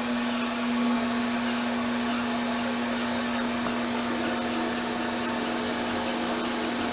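Crankshaft balancing machine spinning a Mopar 360 small-block crankshaft with bob weights fitted, running at a constant speed: a steady hum with a high whine over it.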